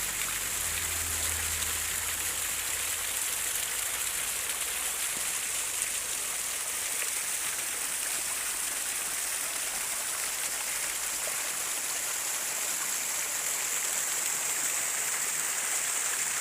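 Running water rushing steadily, an even hiss strongest in the high range, with a low rumble underneath that fades out in the first few seconds.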